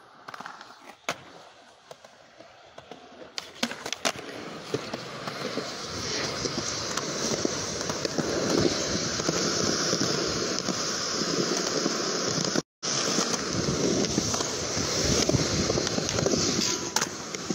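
Skateboard wheels rolling over rough concrete: a gritty, crackling rumble that builds up a few seconds in and carries on, after a few sharp clicks at the start. It breaks off for a moment about three-quarters of the way through.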